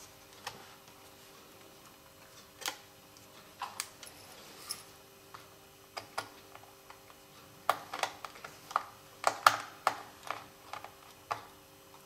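Small, scattered clicks and taps of a precision screwdriver and fingers working the screw and M.2 SSD on its bracket in a laptop's open drive bay. The clicks come thicker and louder in the last third.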